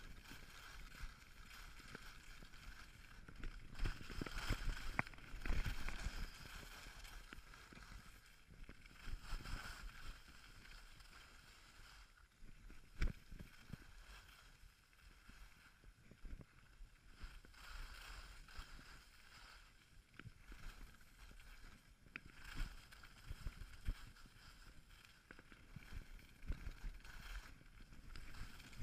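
Skis scraping and hissing over packed snow on a downhill run, with wind noise on the camera microphone and occasional sharp knocks as the skis and camera take bumps. Fairly faint.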